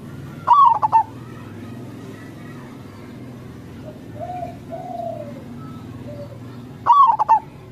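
Zebra dove (perkutut) song: two short, loud, stuttering cooing phrases, one just after the start and one near the end, about six seconds apart. Softer, lower coos come in between.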